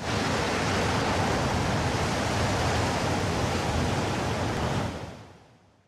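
Steady rush of breaking ocean surf and churning white water, cutting in suddenly and fading out over the last second.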